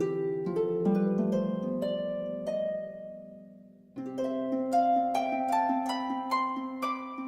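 Background music of plucked, harp-like notes over a held low chord. It fades almost away about three seconds in, then comes back at four seconds with a phrase of notes stepping upward.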